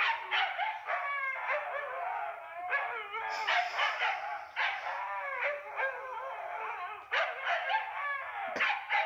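Several huskies howling together in overlapping calls that slide up and down in pitch.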